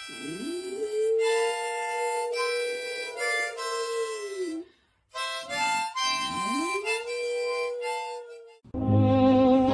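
Harmonica chords with a dog howling along: two long howls, each sliding up in pitch and then held, with a short silence between them just before the middle. Near the end, different music begins.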